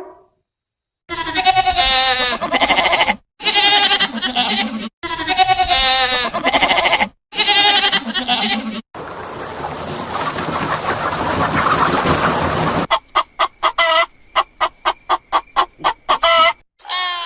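A series of animal calls: four long, wavering pitched calls, then about four seconds of noisy rasping, then a quick run of short notes at about four a second.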